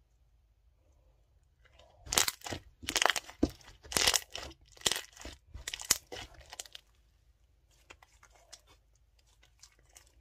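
Clear slime squeezed and kneaded in the hands, giving a run of loud crackles and pops from about two seconds in that dies down to faint crackling after about five seconds.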